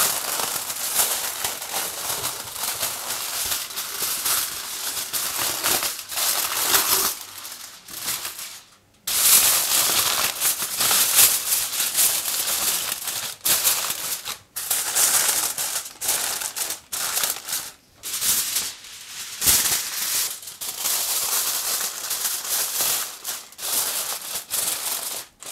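Aluminium foil crinkling and crackling as hands press it down and crimp it around the edges of a roasting tray, in continuous bursts with a few short breaks.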